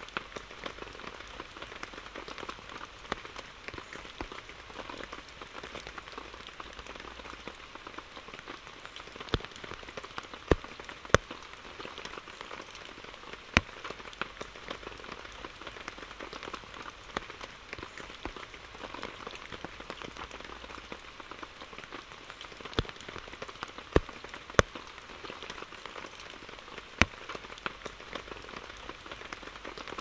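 Steady rain pattering down, with a scattering of louder, sharp drop hits landing at irregular intervals.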